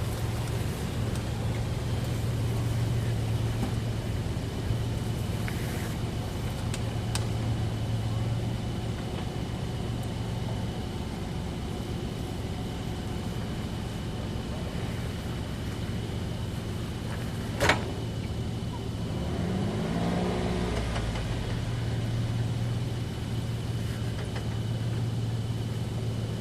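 Four-wheel-drive's engine running steadily at low revs, with a single sharp click about two-thirds of the way through.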